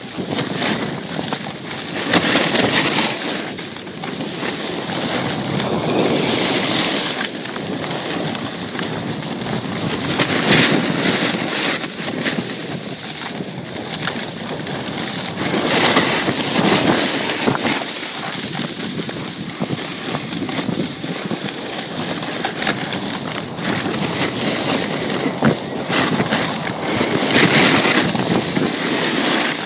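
Wind rushing over the microphone and skis scraping over packed snow during a downhill run, the rush swelling and easing every few seconds.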